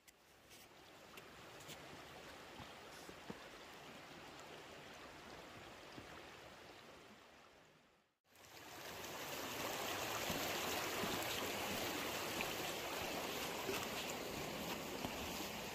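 River water running over stones: a steady rush, dropping out briefly about eight seconds in and coming back louder. A few faint knocks sound over it.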